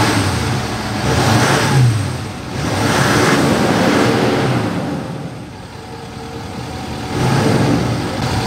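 Nissan Titan XD's 5.0-litre Cummins V8 turbo-diesel revved up from idle three times, each rev rising and falling away, about a second in, around three seconds in and near the end. It is heard through the stock exhaust, which still has its emissions equipment and keeps the truck quiet.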